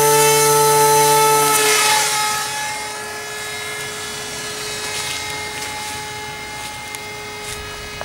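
Maja drone's electric motor and pusher propeller running at launch power with a steady buzzing whine. About two seconds in the whine drops in pitch and grows fainter as the plane flies away, then goes on steadily at a distance.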